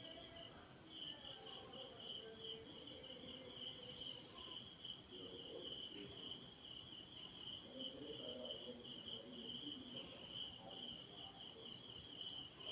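Faint, steady high-pitched chirping of crickets, a rapid pulsing trill that runs on without a break.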